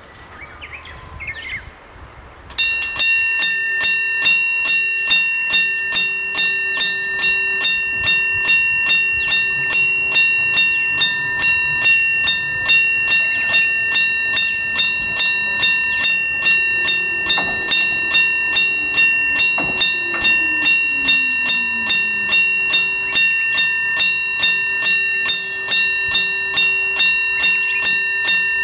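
Electric-bell (dengane) type railway level crossing warning bell starting up about two and a half seconds in, then striking in a steady, rapid, even series, each strike ringing on.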